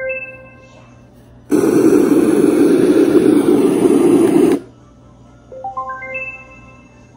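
Portable baby white noise machine: a short rising chime of about six notes fades out, then steady white noise plays for about three seconds and cuts off suddenly, and the same rising chime sounds again near the end.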